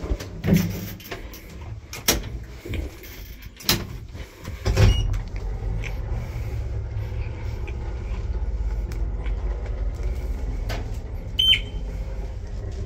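Modernized IFMA T142 traction elevator starting off: a series of clunks and knocks as the doors shut, a heavy jolt about five seconds in, then a steady low rumble as the car travels upward. A short high beep sounds near the end.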